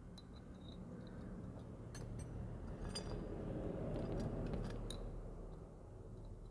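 Faint metallic clicks and clinks of motorcycle clutch plates being handled and fitted into the clutch basket, a few sharp ones around the middle, over a low rumble that swells and fades.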